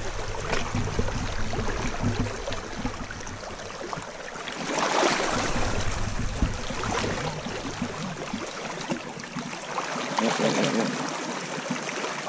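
Shallow river water rushing, with splashing surges a few times as a hooked king salmon thrashes at the surface.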